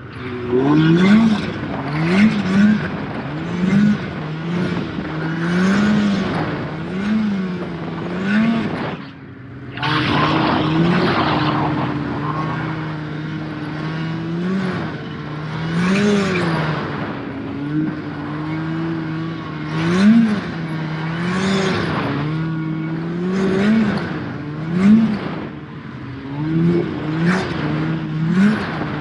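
Snowmobile engine running hard and revving up and down over and over, its pitch rising and falling every second or two, with a brief drop in the sound about nine seconds in.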